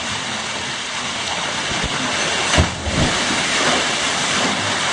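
Waterfall rushing steadily over rock into a pool. A brief loud thump comes about two and a half seconds in, with a smaller one just after.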